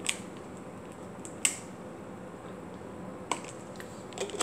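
A person drinking from a plastic drink bottle: four short sharp clicks of the bottle and mouth, spread out about a second or two apart, over a faint steady hum.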